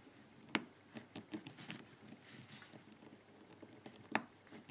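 Small clicks and ticks of a four-wheel combination padlock being handled, its number wheels turned and its shackle worked to feel the play. Two sharper clicks stand out, about half a second in and near the end.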